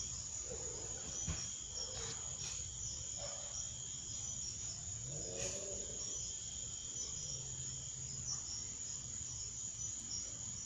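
Crickets trilling steadily in a continuous high-pitched chorus.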